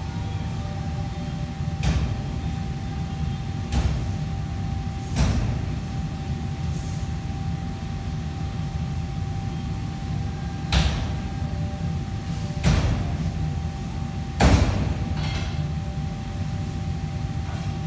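Kitchen clatter: about six sharp knocks and clanks of cookware spread through, the loudest near the end, over a steady low rumble and a constant thin hum.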